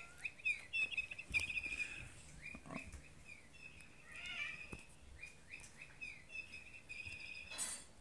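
Electronic bird-sound cat toy chirping in short repeated tweets, in bursts. A brief scuffing noise near the end.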